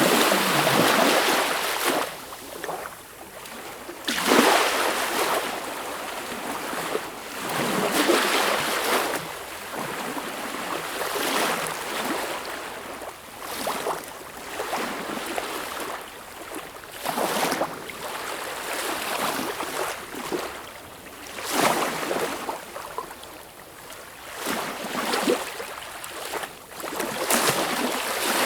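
Sea waves washing in, rising and falling in irregular surges every two to four seconds.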